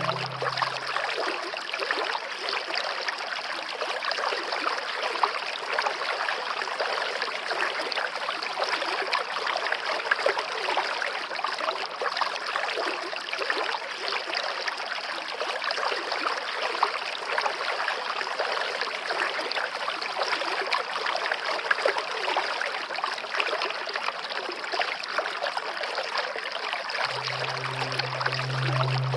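Waterfall water rushing in a steady, even splash. A low sustained music tone fades out about a second in and returns near the end.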